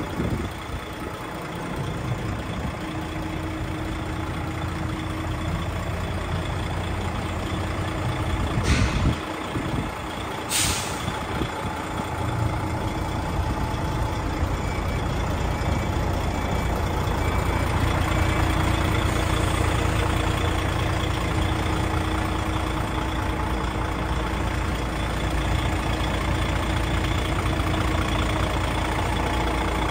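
DAF XF 105.460 tractor unit's 12.9-litre PACCAR MX six-cylinder diesel idling steadily. Two short, sharp bursts of hissing air come about 9 and 11 seconds in.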